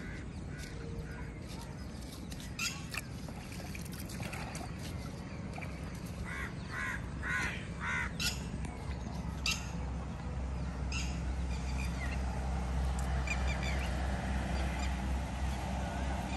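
Crows cawing now and then, with a quick run of about four caws about six to eight seconds in, over a steady low rumble.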